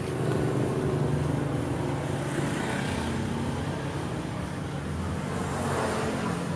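Road traffic noise: vehicle engines running steadily along the street.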